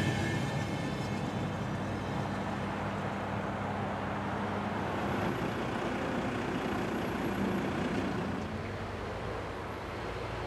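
Steady rumble of motor vehicle engines, a low hum that eases a little near the end.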